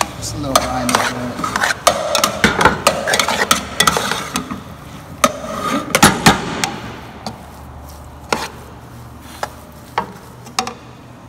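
Metal spoon stirring and scraping thick cornbread stuffing in a large aluminium pot, with frequent clinks and knocks of the spoon against the pot, as an egg is mixed in to bind it. After about seven seconds the stirring slows to occasional clinks.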